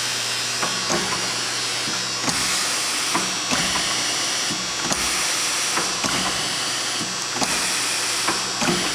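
Orbitform B-700 orbital riveter running, its 1 hp three-phase motor and spindle giving a steady hum and whir, with a click and a shift in tone about every second and a quarter. The run is smooth.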